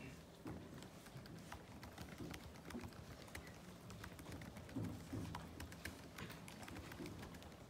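Faint typing on a laptop keyboard: scattered, irregular key clicks over a low steady room hum.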